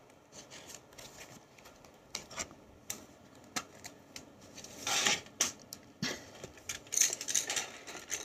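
Hands unpacking a set of Staedtler pencils from their case: irregular light clicks, clinks and rustles of the pencils and packaging being handled, busiest about five seconds in and again near the end.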